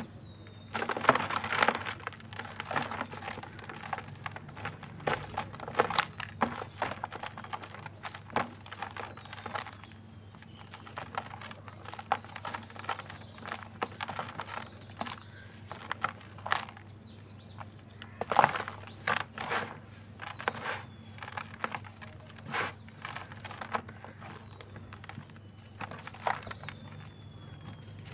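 Dry red dirt bars crunching and crumbling in the hands, loose dirt pouring into a plastic tub: a string of crackly crunches, loudest about a second in, around six seconds and around eighteen seconds. A faint falling whistle repeats every few seconds behind it.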